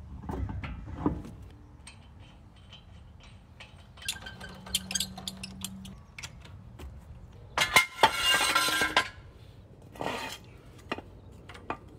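Metal clinking and clicking as lug nuts are threaded onto a truck wheel's studs and run down with a hand wrench, with a louder rattling clatter about eight seconds in.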